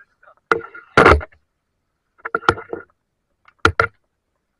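Several short, sharp splashes of water in quick groups, the loudest about a second in.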